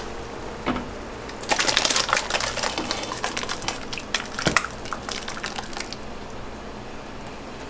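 Rapid clinks and scrapes of a metal ladle against a large aluminium stock pot as thick tomato sauce is stirred and ladled, with one sharper knock about four and a half seconds in. A steady low hum runs underneath.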